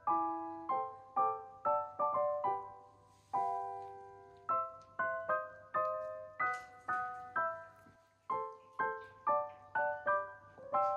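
Background piano music: notes and chords struck about two or three times a second, each ringing out and fading.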